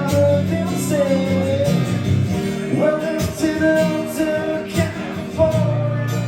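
Song with guitar, bass, drums and a singer, likely a backing or outro track.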